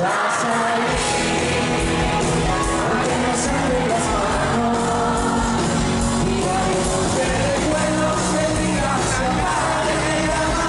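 A live pop-rock band playing loud through the concert PA, a singer over guitars and drums, with the crowd shouting along. The bass comes in about a second in.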